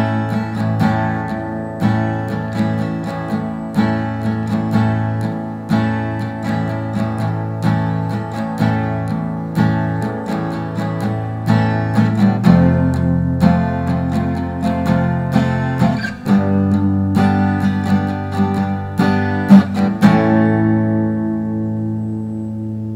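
Background music: an acoustic guitar strumming chords in a steady rhythm, ending about three seconds before the end on a final chord that rings out and fades.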